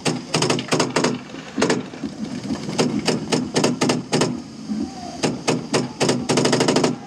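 Tippmann paintball marker firing in short bursts of sharp pops, with a fast, even string of shots near the end, over a steady low hum.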